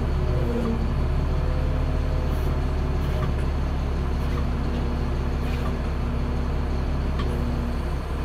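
Steady engine drone of a truck-mounted roofing conveyor belt running while shingle bundles are carried up to the roof, with a few faint knocks.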